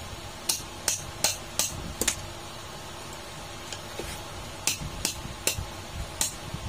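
Sharp metal-on-metal taps, a pair of pliers striking an adjustable wrench set around a freezer condenser fan motor's shaft to work its bearing along the shaft. About a dozen quick taps come in two bursts with a pause of over a second between them.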